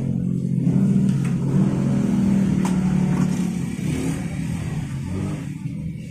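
A motor vehicle engine running steadily, then fading away about four to five seconds in, with a few faint clicks.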